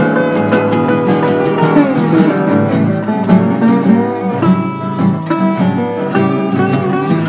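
Instrumental blues played on a resonator guitar and acoustic guitars, picked and strummed together, with notes gliding down in pitch about two seconds in.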